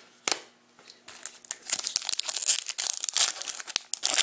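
Foil wrapper of a hockey card pack crinkling and tearing as it is opened by hand. A single click comes just after the start, then dense crinkling from about one and a half seconds in.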